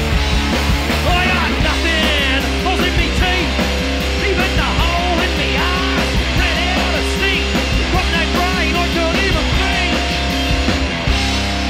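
Punk rock music from a vinyl record: loud electric guitars, bass and drums playing steadily, with a lead line that slides and wavers in pitch.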